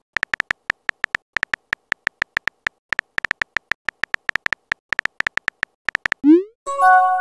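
Simulated phone-keyboard typing: a quick, uneven patter of short key-tap clicks for about six seconds as a text message is typed. Near the end comes a rising swoop and a short chord-like chime, the message-sent sound.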